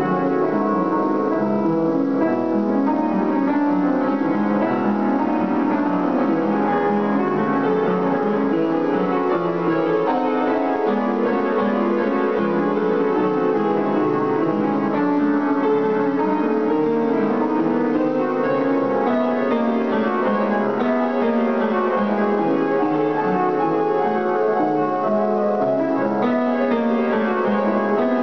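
Upright piano played solo: a busy classical passage of many rapid notes at a steady loudness.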